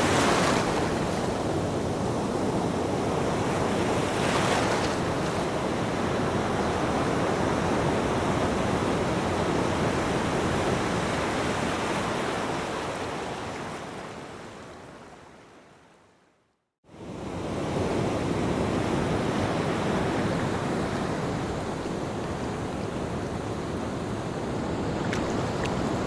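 Ocean surf washing onto a beach, a steady rush with a couple of louder wave breaks early on. About two-thirds of the way through it fades away to silence and comes back in about a second later.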